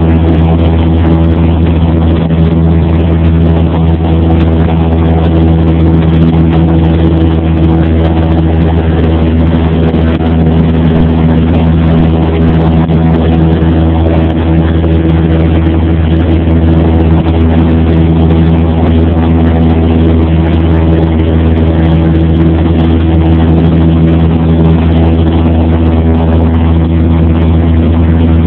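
Cessna 172P's four-cylinder Lycoming engine and propeller droning steadily in flight, heard inside the cabin, with an unchanging pitch.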